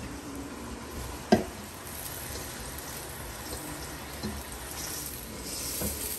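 Finely chopped onion sizzling in hot oil in a stainless steel pot, stirred with a spatula. A sharp knock about a second in and a few lighter clicks later on.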